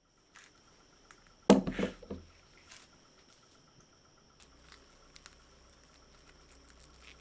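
Several knocks in quick succession about a second and a half in, with scattered lighter clicks of an object being handled on a hard surface.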